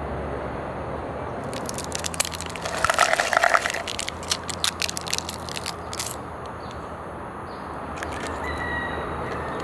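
Foil seal on a plastic wafer snack cup being peeled back: a run of crinkling crackles, loudest about three seconds in and dying away by about six seconds.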